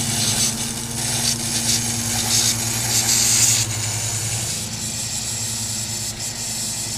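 Compressed air hissing and spitting out of pop-up sprinkler heads as the zone is blown out, clearing the last water from the lines, with a steady low hum beneath it.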